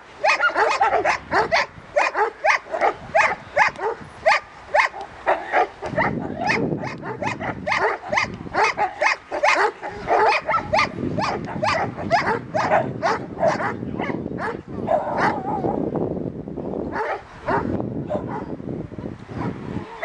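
Dogs barking fast and repeatedly, about two to three barks a second, at a helper wearing a padded bite sleeve in guard-dog protection training.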